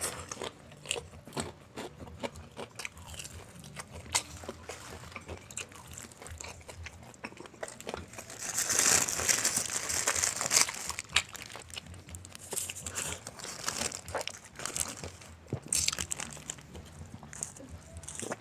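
Close-up mouth sounds of chewing and crunching crispy fried chicken, with short crisp crunches throughout. About halfway through, a paper food wrapper crinkles for a couple of seconds as it is unwrapped.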